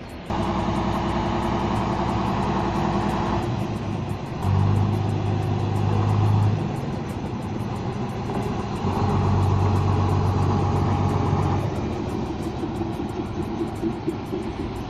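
Locomotive engine running as a train passes at close range, a steady engine note that grows louder about four seconds in and again about nine seconds in.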